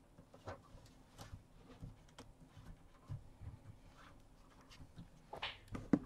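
Faint scattered clicks and rustling of plastic cable ties and SATA cables being handled and cinched together inside a metal DVR case.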